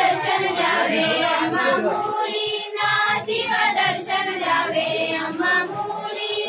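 A group of women singing a song together in high voices, several voices overlapping at once.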